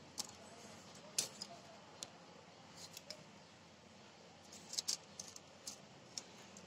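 Folded, fringe-cut paper being opened out and pressed flat by hand: faint, scattered crinkles and clicks of the paper.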